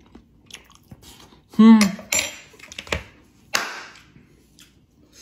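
A man chewing a mouthful of dumpling, with one loud hummed 'mmm' of enjoyment, rising and falling in pitch, about a second and a half in. Soft clicks and a short noisy rush follow.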